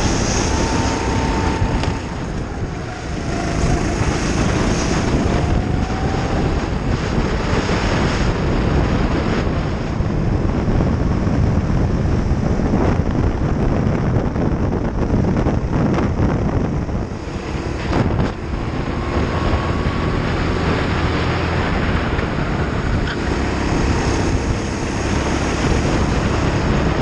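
Racing kart engine running hard under the driver's seat, with wind buffeting on the onboard microphone. The engine note dips briefly twice, about two seconds in and again around eighteen seconds.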